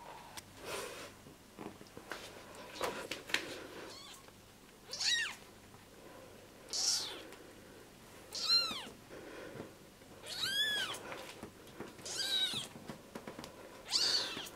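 A young lilac British Shorthair kitten meowing while held in hands: about six high, thin cries a second or two apart, each rising and then falling in pitch.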